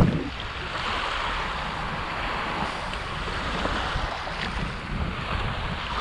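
Small sea waves washing steadily onto a pebbly shore, with wind rumbling on the microphone.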